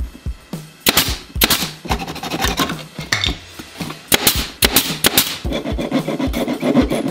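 Handsaw cutting a wooden board with back-and-forth strokes, the scraping loudest in the last couple of seconds. Sharp knocks recur throughout.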